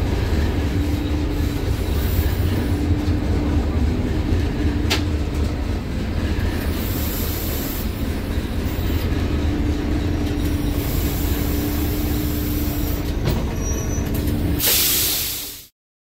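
Diesel train running, heard from inside the driver's cab: a steady low engine rumble with a hum that comes and goes. Several hisses of air sound over it, the last and loudest just before the sound fades out.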